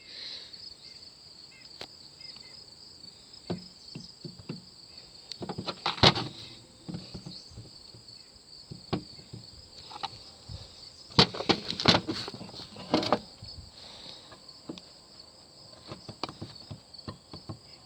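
Crickets chirping steadily, with scattered clicks and knocks from a removed car starter motor being handled, the loudest about six seconds in and a cluster around eleven to thirteen seconds. The starter has play in its shaft end and is worn out.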